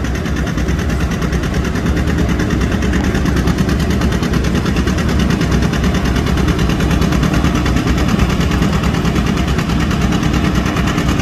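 Old John Deere two-cylinder tractor engine working hard under load during a pull, its exhaust a fast, even run of pulses.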